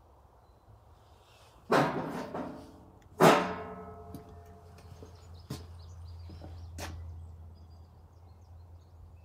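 Two gunshots about a second and a half apart, each echoing away over about a second, then a couple of light clicks.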